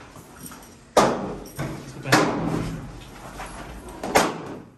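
Gunshots from an indoor shooting range's firing lanes: three sharp cracks about a second or two apart, each with a short echoing tail.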